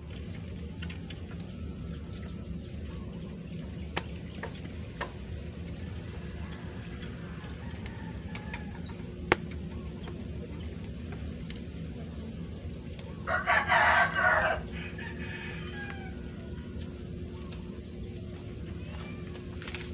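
A rooster crowing once, a loud call lasting about a second and a half, just past the middle, over a steady low outdoor background with a few faint clicks.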